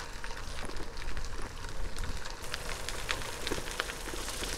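Gravel-bike tyres rolling over a gravel towpath: a steady crackle of many small ticks of grit under the tyres, over a low rumble of wind on the microphone.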